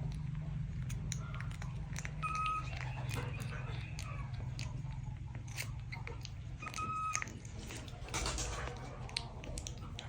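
Small animal chewing and crunching food: a run of small irregular clicks and crunches over a steady low hum, with two brief high tones about two and seven seconds in.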